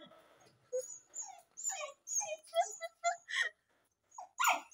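A dog whining in a run of about nine short, high-pitched whimpers, with a brief pause before the last two.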